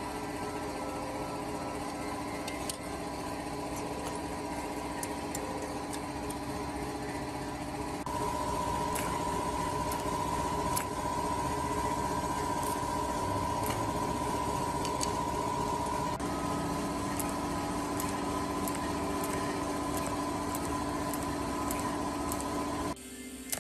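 TIG welder running, a steady electric hum and buzz from the machine and arc with a held tone that steps up about a third of the way in and shifts pitch again past the middle, then cuts off abruptly near the end.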